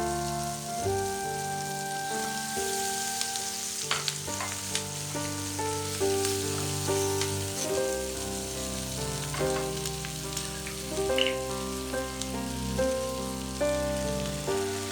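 Food sizzling in a frying pan, with a few sharp clicks as it is stirred. Background music plays over it, a melody of held notes changing about every half second.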